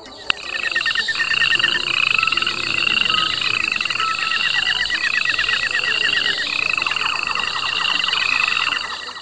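Cartoon creature sound effect: a shrill chirp that rises in pitch, repeated about twice a second over a fast rattling trill.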